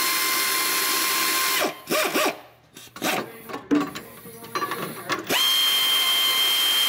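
Pneumatic air ratchet running down running-board bracket bolts. A steady hissing whine lasts about a second and a half, a few short blips follow, and a second steady run with a higher whine starts near the end.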